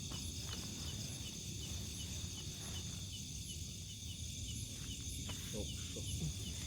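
Night insects, crickets among them, trilling steadily with a regular chirp about three times a second, over a low rumbling background.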